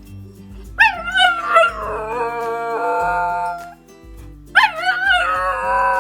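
Dog howling: two long drawn-out howls, the first about a second in and the second starting near the end, over background music.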